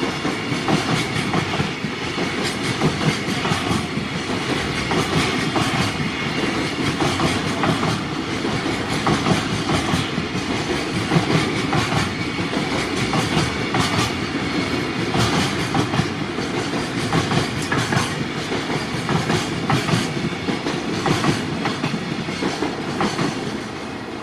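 Long JR Freight train of container flat wagons rolling past, a steady clickety-clack of wheels over rail joints. It eases off slightly near the end as the last wagons go by.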